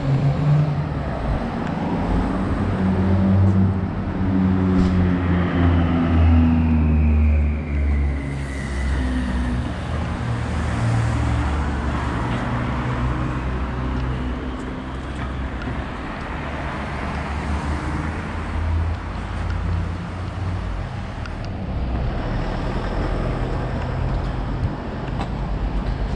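Road traffic on a town street: car engines running and passing, as a steady low rumble, with one vehicle's whine falling in pitch as it goes by.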